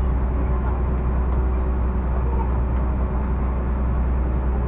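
Engine of a kempang motor passenger boat running steadily under way, a constant deep drone with a steady hum above it.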